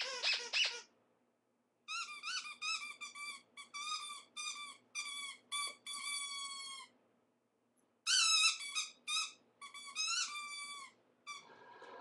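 Rubber squeaky toy squeaking as a Bernese mountain dog puppy chews it. The squeaks come in quick runs of short, high-pitched notes, with a pause of about a second between two long runs.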